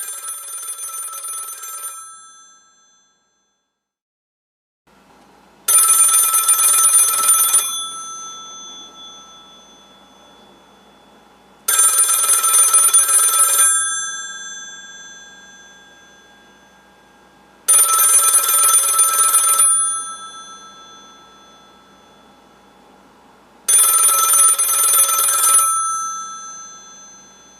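Old dial telephone's bell ringing in regular rings: four loud rings of about two seconds each, about six seconds apart, each trailing off after the ring. Before them, a quieter ring stops about two seconds in and is followed by a short silence.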